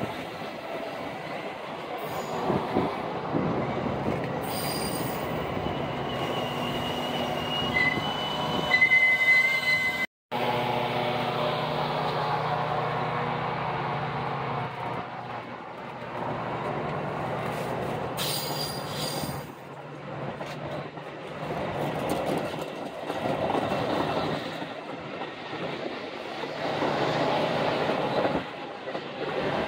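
Metra stainless-steel bilevel commuter cars rolling past at close range, their wheels rumbling on the rails. A thin, high wheel squeal rises a few seconds in.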